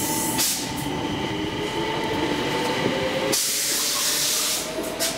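Stockholm metro train pulling away, its motors giving a rising whine. A burst of hiss comes about three seconds in and lasts about a second.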